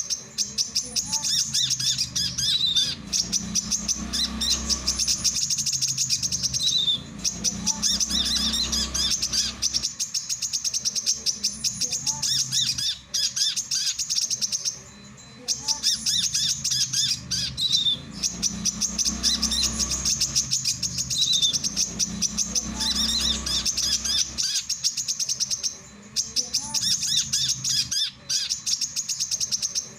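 Male brown-throated sunbird (kolibri kelapa) singing: a fast, unbroken run of high chirps and trills, with short pauses about halfway through and a few seconds before the end.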